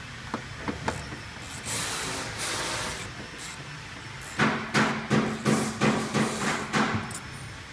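Socket ratchet clicking in quick strokes while the two bolts holding a 1965 Mustang's starter relay are backed out. There are a few lighter clicks in the first second and a short rushing noise about two seconds in.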